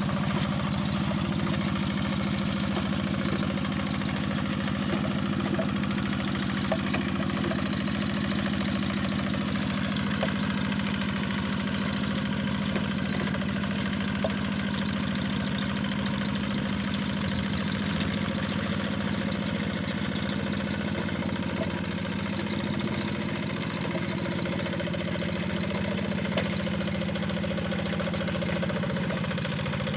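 Yanmar single-cylinder diesel engine of a hand tractor running steadily at an even speed, with a few faint clicks over it.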